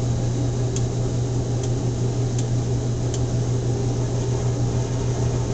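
Maytag washing machine running on its spin cycle: a steady low motor hum, with a faint tick a little under once a second during the first three seconds.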